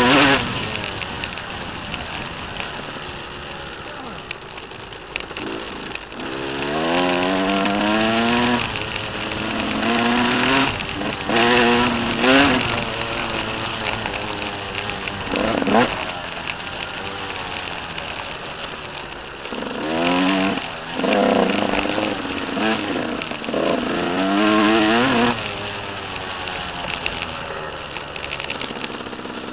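Dirt bike engine being ridden hard on a trail, revving up in rising pitch sweeps and dropping back again, several times over.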